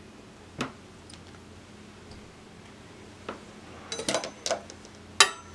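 Metal kitchen utensils clinking and knocking: a few light knocks, a cluster of clatter about four seconds in, then one sharp metallic clink with brief ringing near the end.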